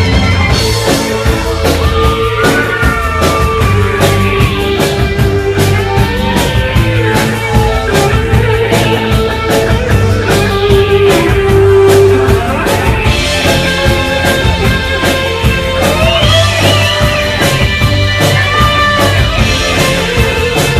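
Live new wave rock band playing loudly: a steady drum beat under held synthesizer and guitar lines, an instrumental passage without singing.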